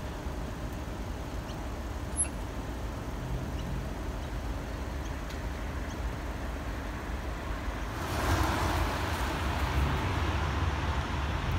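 Road traffic at a level crossing on a wet road: a steady low rumble of cars, with a louder rushing noise from about eight seconds in.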